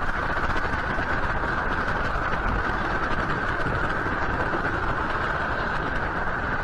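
Steady, even rushing noise from a city camera's microphone, a constant hiss with a low rumble beneath, with no distinct events.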